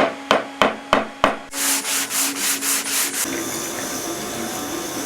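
Woodworking tools on wood: a run of sharp knocks about three a second, then quick back-and-forth rubbing strokes, then from about three seconds in a steady machine hiss.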